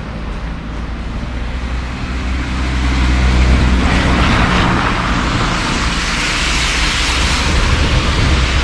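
A motor vehicle's engine running with a low hum, its road noise swelling about three seconds in and staying loud.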